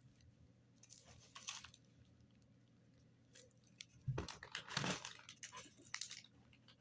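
Packaging being handled: short spells of rustling and crinkling about a second in and again around four to five seconds in, with a soft thump at the start of the second spell and a few light clicks after it.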